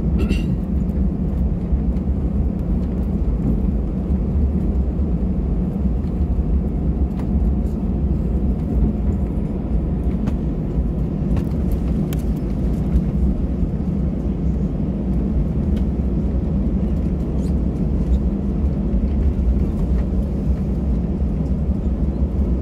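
Steady low cabin rumble of an Airbus A320 taxiing after landing, its engines at idle.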